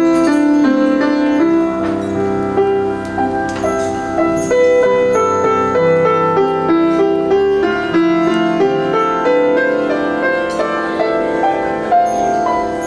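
Solo grand piano playing a melody over sustained chords.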